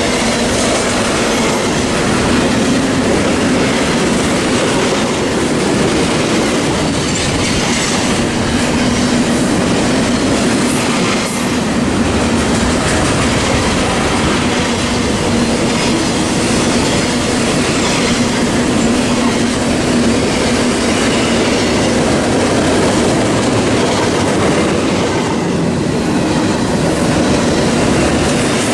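Norfolk Southern freight cars rolling steadily past close by: a continuous wheel-on-rail rumble with clickety-clack over the rail joints and a steady low hum.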